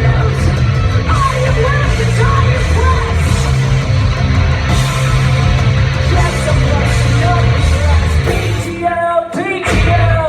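Live rock band playing loud, with drums, bass and guitar under a singer who sings and yells. About nine seconds in the low end cuts out briefly, leaving the voice wavering on its own before the band comes back.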